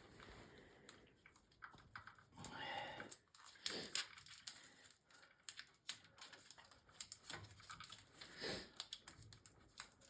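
Faint scattered clicks and brief crinkling from hands handling wires and electrical tape during a temporary splice.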